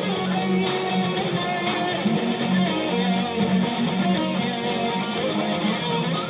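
Music led by guitar, with strummed chords over a steady beat.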